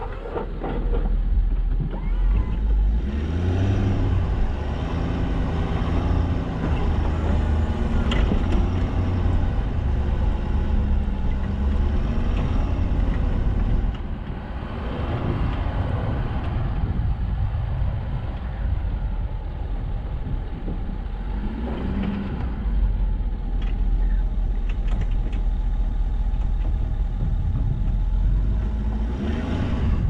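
Plow truck's engine running steadily, its pitch rising and falling several times with the throttle.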